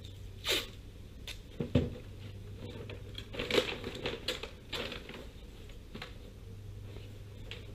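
Tape ripped off the roll, then rosin paper crinkling and rustling as it is unrolled and pressed flat on a folding table, with a dull thump just under two seconds in.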